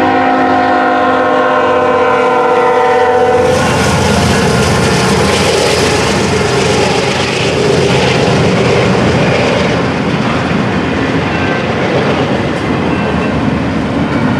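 Norfolk Southern double-stack intermodal freight train sounding its multi-note air horn in one held chord until about three and a half seconds in. The horn then cuts off and the train rolls through the grade crossing, a steady loud rumble of wheels on rail with the clickety-clack of the container cars.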